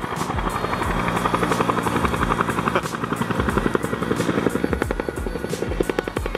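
Helicopter flying low overhead, its rotor blades beating in a fast, even pulse.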